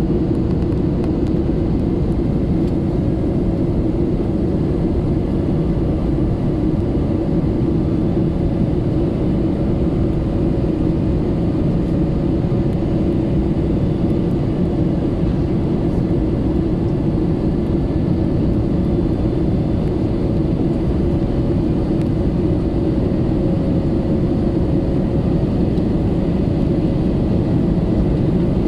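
Steady cabin noise inside an Airbus A321neo in flight: a constant rush of airflow with the hum of its Pratt & Whitney PW1100G geared turbofan engines, muffled through the fuselage and without change.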